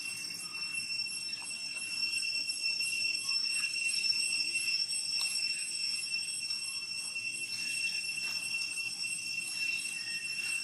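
Insects in the surrounding forest droning with a steady high-pitched whine. Faint rustles of dry leaves come from monkeys moving over the leaf litter.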